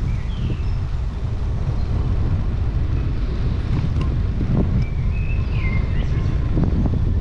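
Wind buffeting an action camera's microphone while it moves along a street, a steady low rumble. A few short high chirps sound faintly above it.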